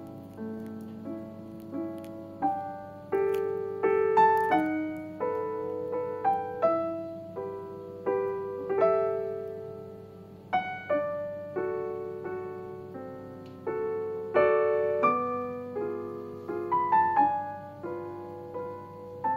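Background piano music: a melody of single notes and chords, each note struck and left to fade.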